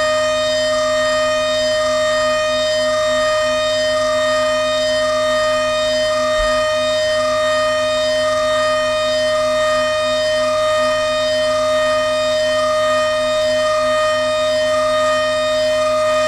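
DATRON neo+ CNC milling machine's high-speed spindle running, a loud steady whine made of several held pitches, with a slight regular waver.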